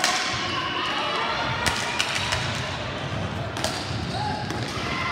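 Ball hockey play: a handful of sharp clacks of sticks striking the hard plastic ball, three of them in quick succession a little before halfway, over the steady noise of the game.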